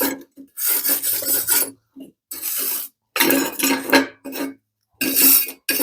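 Wire brush scrubbed across a metal weld joint in several short strokes with brief pauses between them, cleaning the joint before TIG welding.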